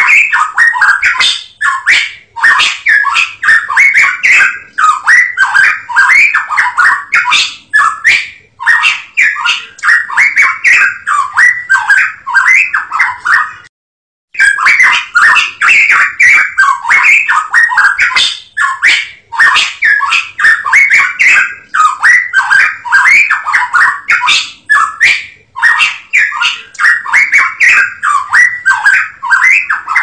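Cucak emas Papua songbird singing a fast, continuous chatter of short notes in phrases of a second or two, with a brief break about fourteen seconds in.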